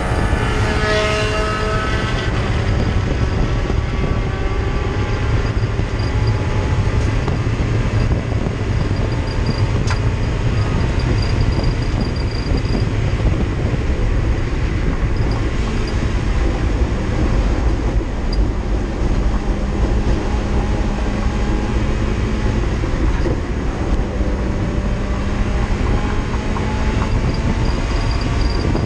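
Race car engine pulling hard at high revs, heard from inside the stripped cabin over loud road and wind noise. Its pitch climbs near the start, then it runs on steadily down the straight.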